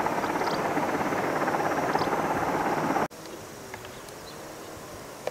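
Military helicopter's turbine and rotor noise from a distance, steady, cutting off abruptly about three seconds in. After that, much quieter open-air background with a faint wavering drone and a few small chirps.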